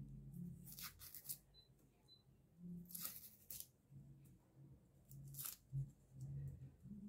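Faint papery crackles and scrapes of a kitchen knife peeling the dry outer skin off a red onion, in a few short bursts.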